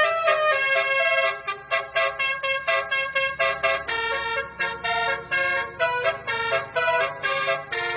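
Indonesian bus 'telolet' horn: a multi-tone horn playing a quick melody of short and held notes.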